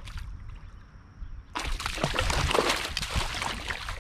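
Water splashing and sloshing close to the microphone, starting about a second and a half in, as a fish is handled in a landing net in the river.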